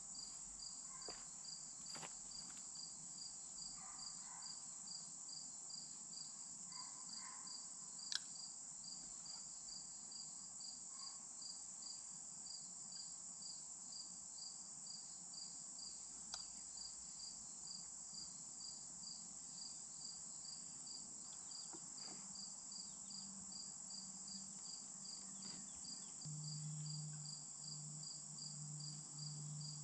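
Insects singing: a steady high trill with an evenly pulsed chirp about twice a second. A few light clicks of plastic PVC pipe fittings being handled, the sharpest about eight seconds in, and a low steady hum that comes in near the end.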